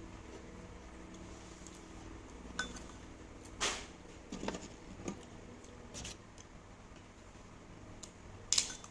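Scattered clinks and knocks of dishes and cutlery at a meal, about half a dozen separate strikes, with the loudest two in the middle and near the end, over a faint steady low hum.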